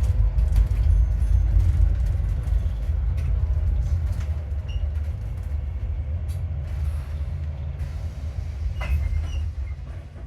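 Low engine and road rumble inside an Alexander Dennis Enviro400MMC double-decker bus, fading steadily as the bus slows for a stop.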